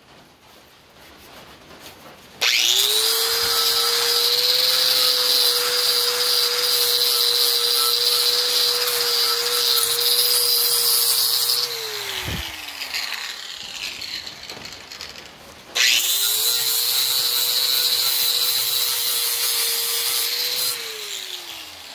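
Electric angle grinder grinding the cutting edge of a steel lawn mower blade to sharpen it. It runs twice for several seconds, each time spinning up to a steady whine over the grinding noise, then switched off and winding down with a falling whine.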